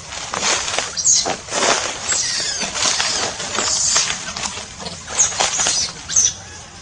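Dry twigs and leaf litter rustling and crackling in irregular bursts as they are pushed through, with a few short high squeaks about a second in and again near the end.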